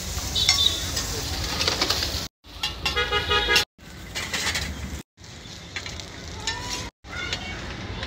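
Metal spatula scraping and clicking on a flat iron tawa with a light sizzle, over busy street noise. A steady pitched tone sounds for about a second near the middle, and the sound drops out abruptly several times.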